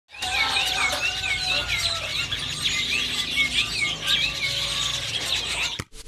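Many caged songbirds chirping and whistling together, with short rising-and-falling chirps repeating over a low background rumble. It cuts off suddenly just before the end.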